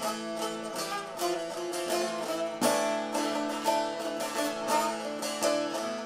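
Long-necked Turkish bağlama (saz) played with quick, rhythmic plucked strokes: a moving melody over a steady ringing drone string.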